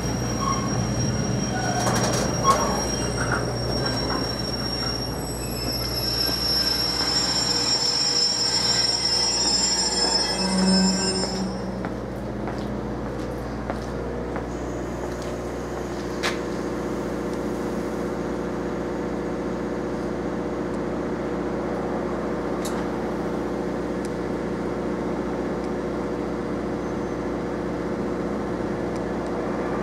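Container freight train's wagons rolling past, wheels squealing in several steady high tones for about the first twelve seconds; then the squeal stops and a steady lower rumble carries on.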